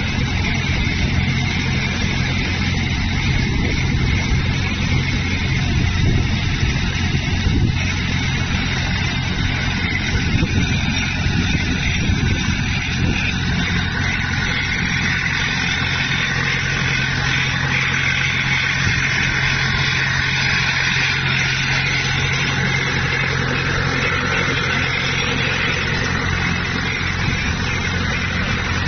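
Automatic clam harvester running steadily: a constant machine hum from its drive and the vibration motors of its sorting screens, with a noisy rattle of clams shaking across the screens.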